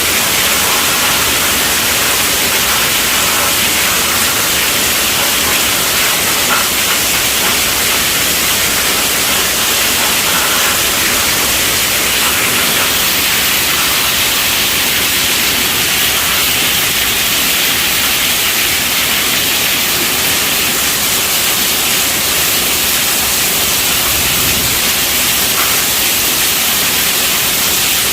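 Heavy rain falling on a tent roof, a steady, even hiss with no thunder.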